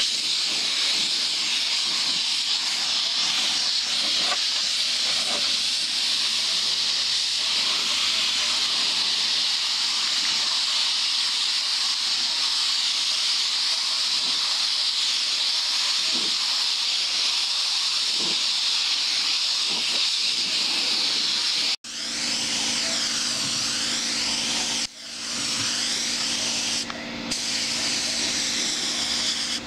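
Compressed-air spray gun hissing steadily as it sprays clear coat. The hiss cuts out abruptly about two-thirds of the way through, then resumes with two brief breaks. After that a faint steady low hum runs under it.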